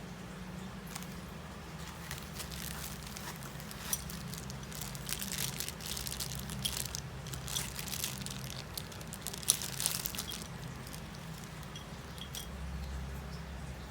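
Packaging being handled during an unboxing: irregular crinkling and crackling, busiest in the middle stretch, over a steady low hum.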